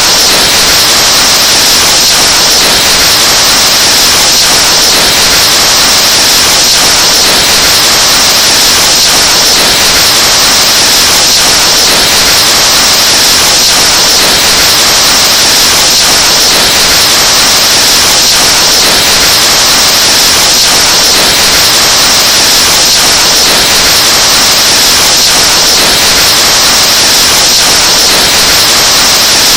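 Breath blown into a microphone, overdriven and heavily distorted into a loud, steady hiss of clipped noise.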